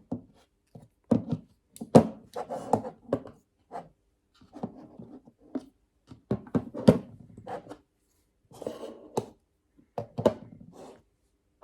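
Metal multi-tools being handled: irregular clicks, knocks and short scrapes as they are picked up, moved and set down.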